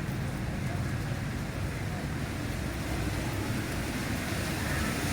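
Steady wash of heavy rain mixed with a low rumble of road traffic on wet streets, growing a little louder near the end.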